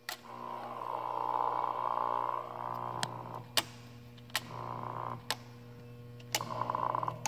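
Rotary switch clicking on, then the milling machine's coolant pump running with a whine over a steady hum. The whine comes and goes over the following seconds, broken by several more sharp clicks.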